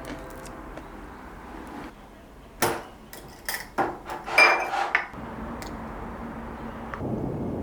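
Dishes and cutlery clinking: a handful of sharp clinks and knocks a little past a third of the way in, one with a short ringing note. Near the end a steady hiss sets in.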